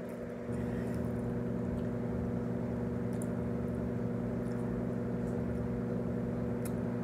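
A steady machine hum with a low buzzing pitch that gets louder about half a second in and then holds level.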